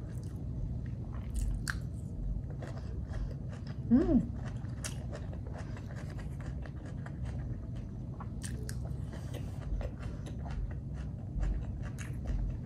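Close-up chewing of sweet corn kernels, with many small scattered clicks and crunches, and a short hummed "mm" about four seconds in.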